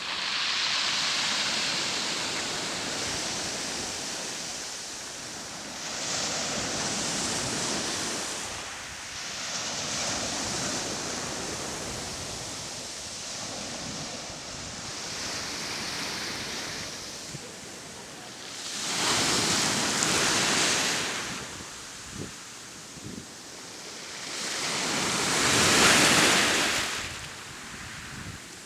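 Sea waves washing onto the shore, a steady hiss that swells and ebbs every few seconds, with the two loudest breakers a little past two-thirds of the way through and near the end.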